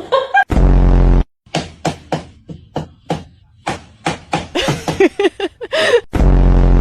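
Edited sound-effect track: a run of short knocks and taps like hammering, with a loud buzzing tone that starts and stops abruptly, once about half a second in and again near the end.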